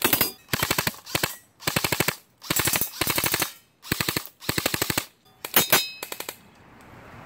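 VFC SCAR airsoft rifle firing on full auto in about seven short bursts, each a rapid string of shots, with brief pauses between bursts; the firing stops about a second before the end.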